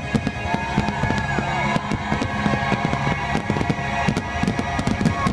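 Fireworks bursting in rapid succession, many sharp bangs close together, over the show's music playing on underneath.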